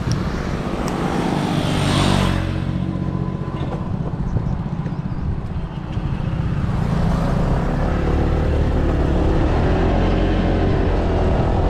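Motorbike engine running as the rider sets off and rides on, getting louder from about the middle on. A brief rush of noise comes about two seconds in.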